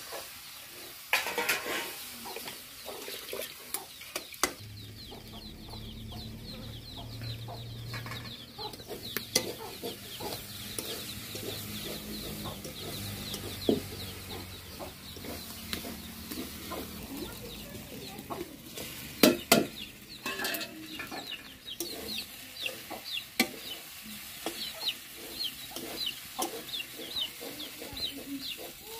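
Chickens clucking, with many short, high calls repeated over and over, over the occasional clink and scrape of a metal spatula stirring taro and chicken pieces frying in an iron karahi. The sharpest clinks come about two-thirds of the way in.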